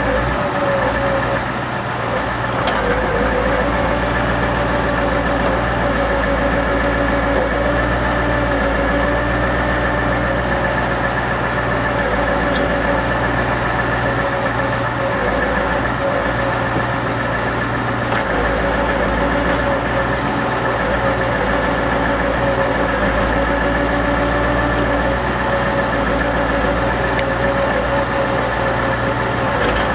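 Scania R580's V8 diesel running steadily to power the Epsilon M12Z timber crane, with a steady whine from the crane's hydraulics over the engine.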